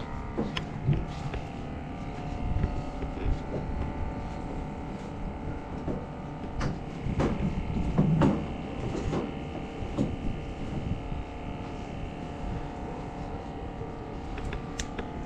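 An engine running steadily at an even pitch, with several knocks and clatters over it; the loudest knock comes about eight seconds in.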